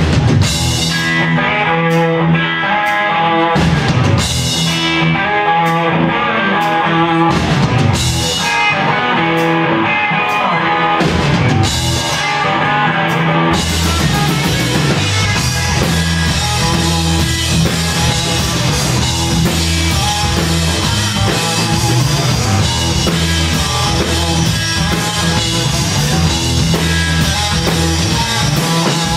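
Live rock band playing an instrumental passage on electric guitars, bass and drum kit, coming in all at once at the start.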